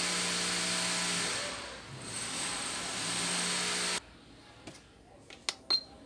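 A power drill running steadily with a whine, dipping briefly about two seconds in and then stopping abruptly about four seconds in. A few sharp clicks and a short beep follow near the end as the diffuser's light is switched on.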